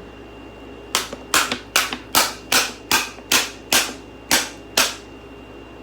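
A quick series of about ten sharp bangs, evenly spaced at about two and a half a second, each dying away fast.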